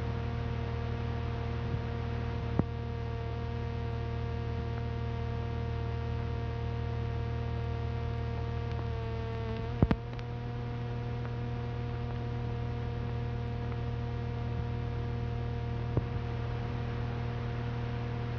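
Steady electrical mains hum with a stack of overtones on a cassette tape transfer, in the blank stretch where the tape is turned over between sides. A few clicks sound through it; the loudest comes about ten seconds in, where the hum briefly wavers in pitch.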